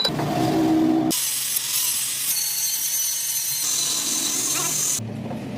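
Workshop power-tool noise in short cut-together pieces: a lower humming tone for about a second, then a loud high hissing whir that stops abruptly near the end.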